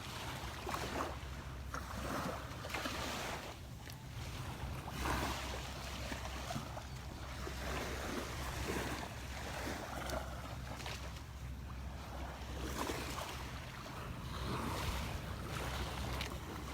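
Surf washing onto the beach, swelling and easing every second or two, with wind rumbling on the microphone.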